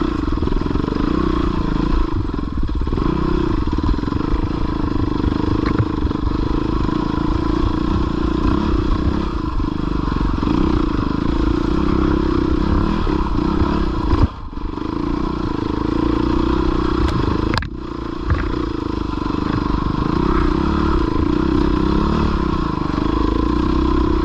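Dirt bike engine running steadily under load on rocky ground, with some clatter and scraping. The engine sound drops off sharply for a moment twice, about fourteen and seventeen and a half seconds in.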